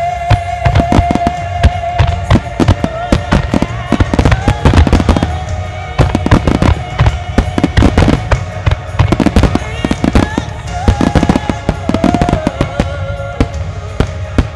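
Starmine fireworks barrage: shells launching and bursting in rapid succession, many sharp bangs a second with crackling between them. Music plays along with a held, sustained melody.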